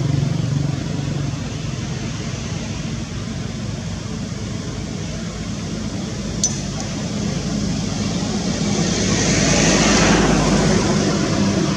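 A motor vehicle's engine hum, fading early on, then a broad rushing noise that swells and falls away near the end like a vehicle passing; one sharp click about halfway through.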